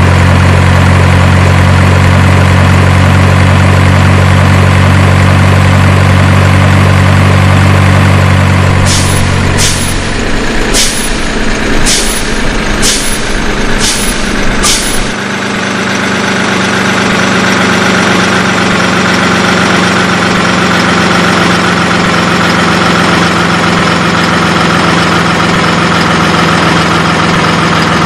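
Heavy truck engine running steadily with a deep low rumble. Partway through come seven short sharp sounds about a second apart, after which the low rumble drops away and a higher, lighter engine note carries on.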